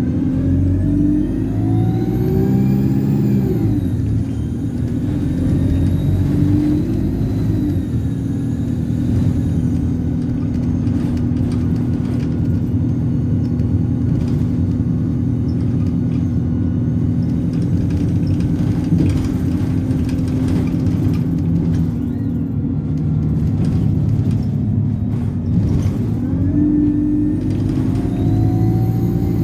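Alexander Dennis Enviro200 bus's diesel engine pulling away with a loud, high turbo whistle climbing in pitch. Both drop away about four seconds in, and the engine runs on steadily. Near the end the engine and whistle rise again as the bus accelerates.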